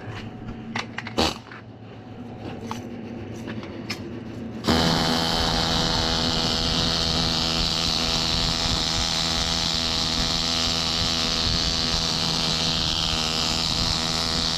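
Stick-welding arc from a 1/4-inch 7018 electrode at about 250 amps: struck about a third of the way in, it runs as a steady loud hiss and crackle over an even hum for some ten seconds, then stops abruptly at the end. Before the arc there are a few scattered clicks and taps.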